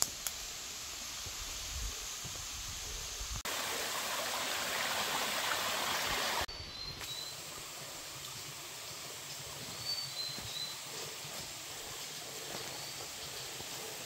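Steady rushing of a mountain stream over rocks, louder for about three seconds in the middle. In the second half a bird gives short, high, falling two-note chirps several times.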